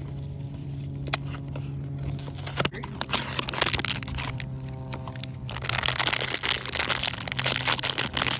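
A small cardboard blind box being opened with a couple of sharp clicks, then its silver foil blind bag crinkling loudly as it is pulled out and squeezed, from about halfway on, over a steady low hum.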